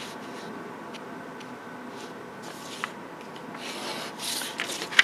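Pencil drawing straight lines on paper: two short rubbing strokes, about halfway through and near the end, over faint room hiss.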